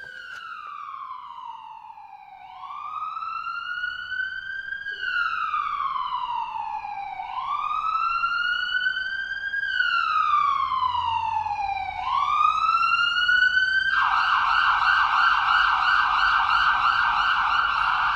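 Emergency vehicle siren sounding a slow wail that rises and falls about every five seconds, growing louder, then switching to a rapid yelp about fourteen seconds in.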